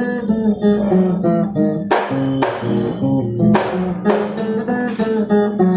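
Acoustic guitar played with picked single notes over a moving bass. A full strummed chord is struck about every one and a half seconds.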